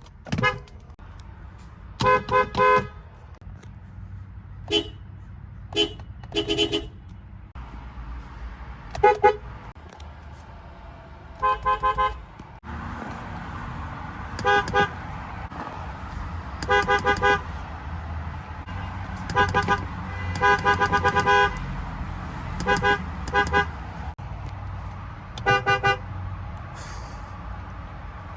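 Car horns sounded again and again in short toots, singly and in quick pairs and triples, about a dozen bursts in all, with the pitch changing from one burst to another. A steady low rumble runs underneath.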